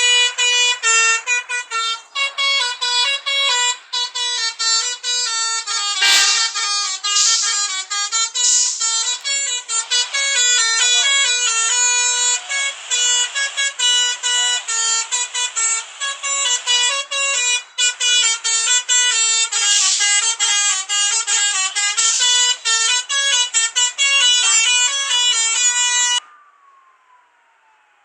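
Indonesian 'telolet basuri' multi-tone bus air horn playing a long, loud melody of quick stepping notes, which stops abruptly near the end.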